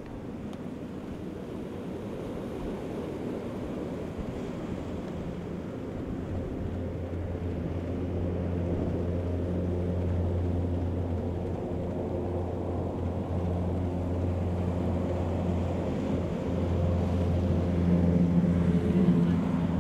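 Canadair CL-415 twin-turboprop water bomber scooping water offshore and then flying low past, its propeller drone growing steadily louder and loudest near the end as it passes close. Surf and wind noise underneath.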